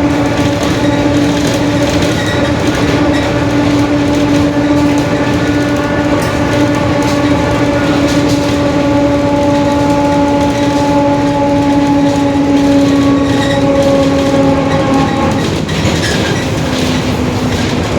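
Mercedes-Benz OF-1721 bus driving, its differential whining in a steady pitched drone over the drivetrain noise, the growl of a noisy differential. The whine shifts lower about three quarters of the way in, as the bus changes speed.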